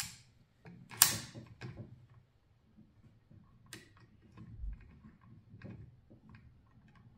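Small metallic clicks and scrapes of a screwdriver turning a screw down into a Herters XK3 rifle's action, with a sharper metal clack about a second in and scattered lighter ticks after.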